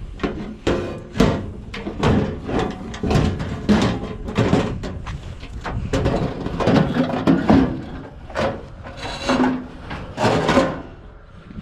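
Pieces of scrap metal being handled and tossed onto piles: a run of irregular knocks and clanks, some briefly ringing.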